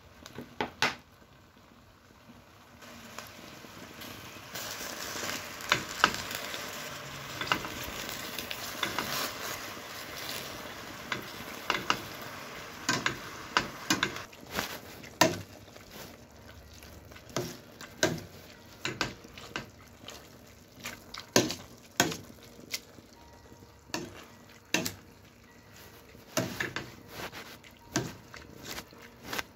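Boiled carrots sizzling in olive oil in a hot pot, with scattered knocks, for the first half. In the second half a metal potato masher presses them into mash, knocking against the pot about once a second.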